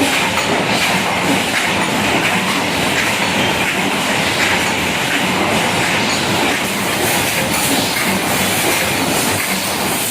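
Paper plate making machine running: a loud, steady mechanical clatter.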